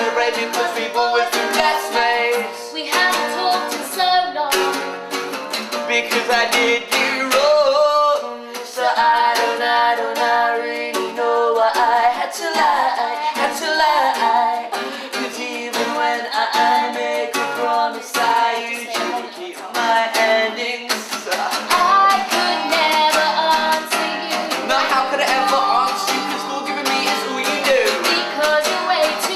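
Acoustic guitar strummed in a steady rhythm, with a man and a woman singing a song together over it.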